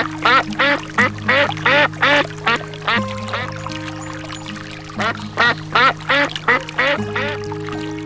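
Rapid series of short, arched animal calls, about three a second, in two runs with a pause of about two seconds between them, over background music with steady held notes.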